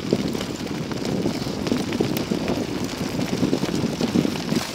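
Sacco dog cart rolling along a gravel track behind three trotting dogs: a steady crunching rumble of wheels on gravel with small irregular rattles and ticks.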